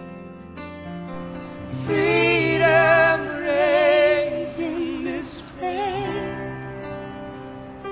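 Gospel worship music: sustained keyboard chords under a woman's voice singing a held melody with vibrato, strongest about two seconds in and easing off after five.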